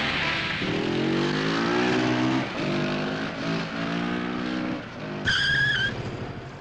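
Motorcycle engine revving hard, its pitch climbing, dropping once about two and a half seconds in, then climbing again, followed about five seconds in by a short, high tire squeal lasting under a second.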